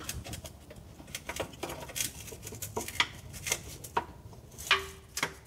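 Irregular light clicks and knocks of a stamped-steel transmission pan being tugged and pried by hand to break its gasket seal.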